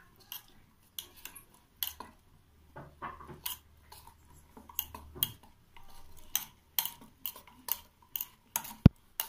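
Metal spoon stirring thick batter in a stainless steel bowl, clinking and scraping against the bowl's side in irregular strokes, with a louder knock near the end.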